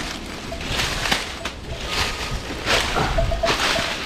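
Strong gusting wind buffeting the microphone with a low rumble, and rushing through the trees in surges about once a second.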